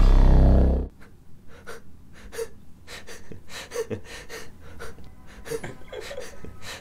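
Electronic music stops abruptly about a second in. A man's short, repeated breaths and gasps follow, quieter than the music.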